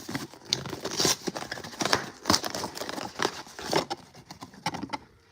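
Packaging of a plushie mystery box being torn and crinkled open by hand: a run of irregular crackles and rips that thins out near the end.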